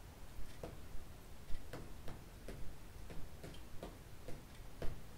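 Light, slightly irregular ticks, about three a second, of a fingertip tapping on a clear see-through letter board as letters are pointed out one by one during gaze spelling.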